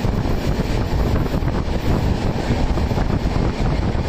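Humsafar Express passenger train running, heard from an open door or window: wind rushing over the microphone over the steady rumble of the coaches on the track.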